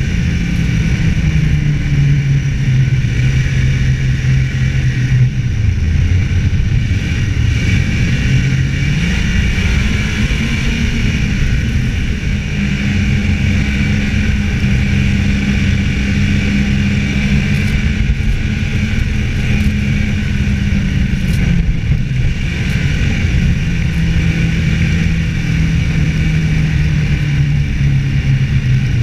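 Snowmobile engine running at trail speed, heard from a camera on the sled, over a steady hiss of wind and track. Its pitch drops about five seconds in, climbs around ten seconds in and holds, then falls back a little past twenty seconds as the throttle changes.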